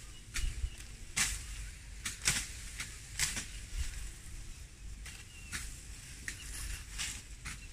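Tall grass stalks being cut and gathered by hand: irregular crisp swishes and snaps, roughly one a second, with rustling of the long leaves.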